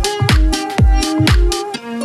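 Background electronic dance music: a kick drum about twice a second under sustained synth chords, with the kick dropping out near the end.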